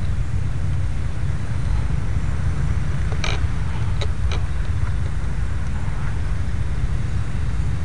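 Wind buffeting the microphone, a steady low rumble, with a few short sharp clicks about three to four and a half seconds in. No motor from the small RC plane stands out.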